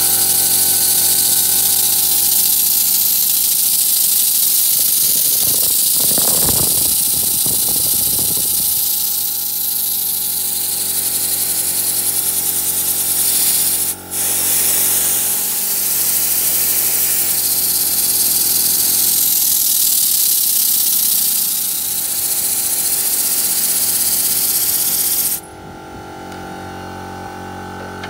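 Stuart V10 single-cylinder model steam engine running on compressed air, with a loud, steady hiss of exhausting air over the running of the engine. The hiss dips once briefly about halfway and drops away sharply near the end.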